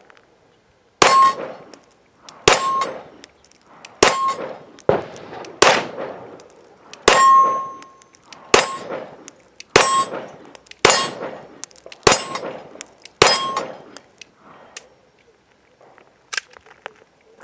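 Sig P320 X5 9mm pistol fired about eleven times at a steady pace, roughly one shot every second or so. Most shots are followed by the short ring of a steel target being hit.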